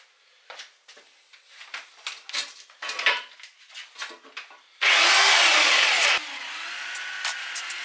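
Short scraping and rubbing sounds of handwork on the aluminium rim. Then, about two-thirds of the way in, an electric drill with an abrasive disc starts with a loud whine. After a second or so it settles into a steadier, quieter running noise as the disc works against the aluminium wheel lip.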